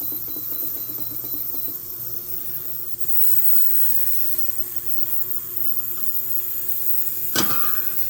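Ultrasonic cleaner running with a steady hum, its water tank sloshing as a part is held under the water. A sharp knock near the end.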